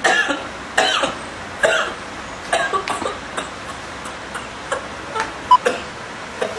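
A man laughing in short breathy bursts, strongest at first and then trailing off into smaller, quicker ones.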